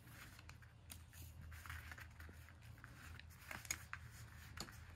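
Faint scuffs and clicks of a puppy scrambling and tugging at a toy mackerel on an elastic shoelace over a floor mat, with a few sharper clicks in the second half, over a low steady hum.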